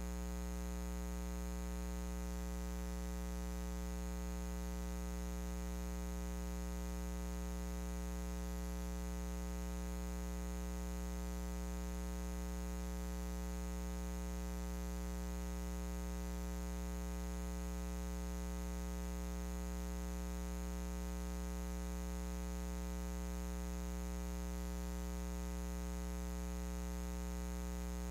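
Steady electrical mains hum: a low, unchanging drone with a ladder of evenly spaced overtones, over a faint hiss.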